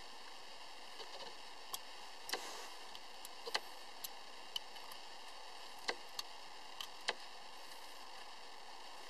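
Light, irregularly spaced clicks and ticks from a metal Mile Marker hub lock and its small supplied tool being handled, over a steady faint hiss.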